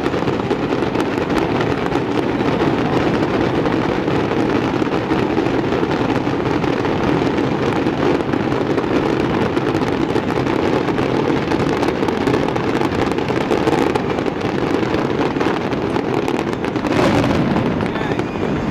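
Fireworks display going off without a break: a dense, continuous barrage of bursts and crackling, swelling briefly louder near the end.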